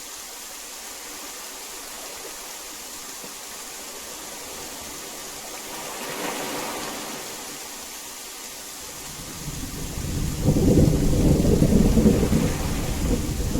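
Heavy rain falling steadily. About two-thirds of the way through, a deep rumble of thunder swells up and keeps rolling as the loudest sound.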